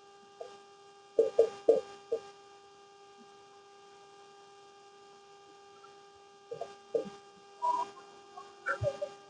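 Steady electrical hum with high overtones, with a quick run of four short sounds about a second in and several more near the end.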